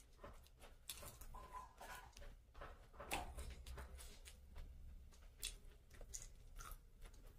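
Faint eating sounds: a person chewing a mouthful, with short wet clicks and smacks, then fingers picking through rice and chicken on a plate.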